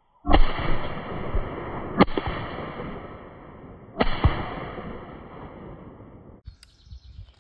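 Three shotgun shots at clay targets, about two seconds apart, each report echoing away over a second or two. A short sharp click follows near the end.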